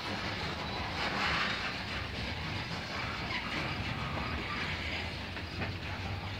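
Loaded coal cars of a long freight train rolling slowly past on steel rails, a steady noise of wheels on track with the cars creaking.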